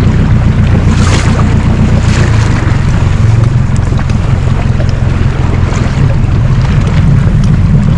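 Outboard motor of a Zodiac inflatable boat running steadily under way, with wind buffeting the microphone and water rushing past the hull. There are a couple of brief splashes about one and two seconds in.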